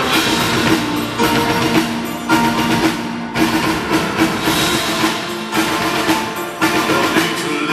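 Live rock song played by a band with orchestral players, in an instrumental stretch without singing, with percussion hits standing out.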